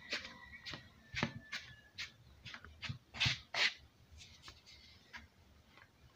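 Hand mixing flour and baking powder in a plastic bowl: a run of soft scuffing, rustling strokes, a few a second, thinning out after about four seconds.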